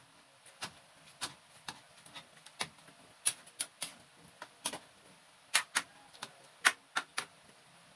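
Metal spatula clicking and knocking against a wide aluminium wok while a pan of chicken curry is stirred: irregular sharp clicks, about two a second, some much louder than others.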